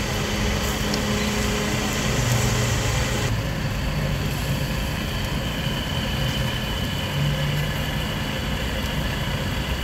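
Steady low engine hum with a constant hiss over it; the higher part of the hiss drops off suddenly about three seconds in.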